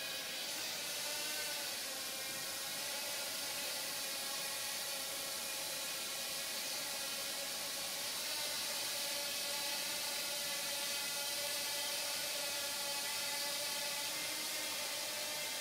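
Blade Nano QX micro quadcopter hovering: its four small motors and propellers give a steady, high whine over a hiss, the pitch wavering slightly as the throttle shifts.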